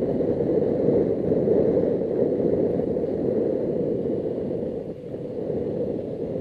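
Suzuki GS500E motorcycle riding at low speed: a steady rumble of wind and the air-cooled parallel-twin engine running, heard from a microphone inside the rider's helmet. The rumble dips briefly about five seconds in.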